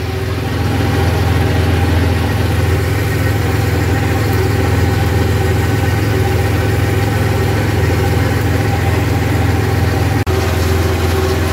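Yanmar 1300 compact tractor's diesel engine running steadily under load as it pulls a tractor-mounted mower through grass, heard from inside the tractor's cab. There is a brief dip in the sound about ten seconds in.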